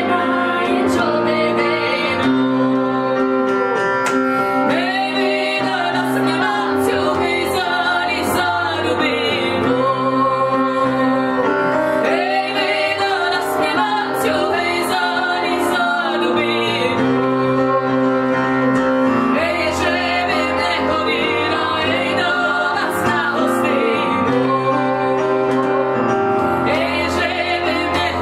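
Two women singing a song together, their held notes wavering with vibrato, over piano chords played on a stage keyboard.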